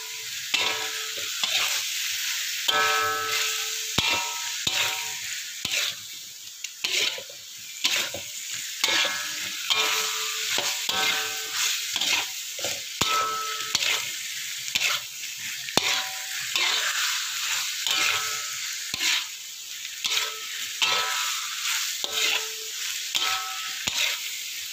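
Long beans and giant-clam meat sizzling in hot oil in a metal wok, stir-fried with a metal spatula that scrapes and knocks against the pan many times, sometimes with a short ringing scrape.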